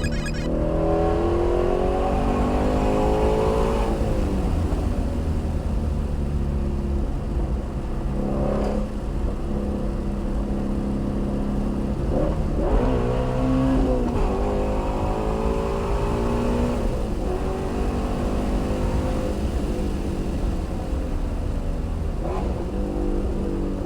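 Shelby GT350R's 5.2-litre flat-plane-crank V8 under way, its pitch climbing under acceleration for the first few seconds and dropping back about four seconds in, then running steadier with another rise and fall around twelve to fourteen seconds in.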